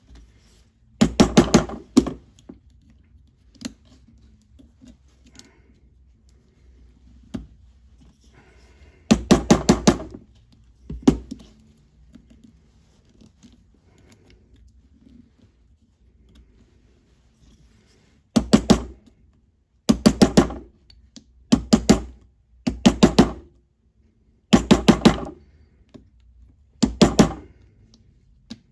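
A small locksmith hammer taps a punch held on the top of a brass Emhart mortise cylinder, working the cap strip into place. The taps come in about nine quick bursts of several sharp strikes each, spaced a few seconds apart.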